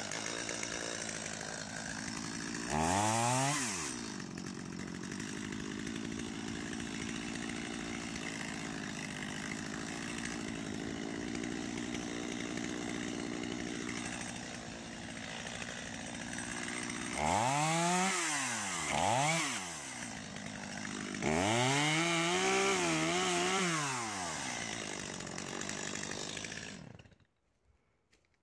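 Stihl MS250 two-stroke chainsaw running, revved up and back down about three seconds in, then blipped twice. It is held at high revs for a few seconds with a wavering pitch while it cuts into a fallen limb, and then the sound cuts off suddenly near the end.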